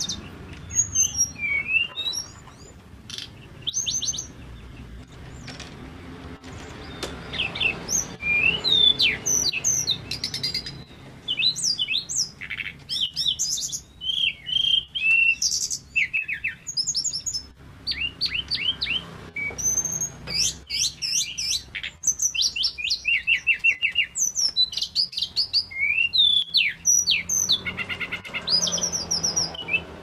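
Male tledekan gunung, a blue-and-orange flycatcher, singing in full voice: quick run-on phrases of high whistles, chirps and rapid trills. There is a short quieter pause a few seconds in.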